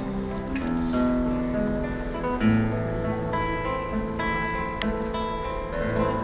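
Music: an acoustic guitar playing and strumming chords in an instrumental break of a song, with no singing.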